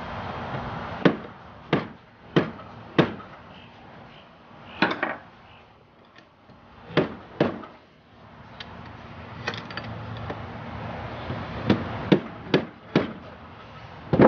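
Hammer striking a metal bar set against a seized piston in a Johnson 140 outboard powerhead, trying to drive the stuck piston free. Sharp, separate blows in irregular groups: four in the first three seconds, a few spread through the middle, and four close together near the end.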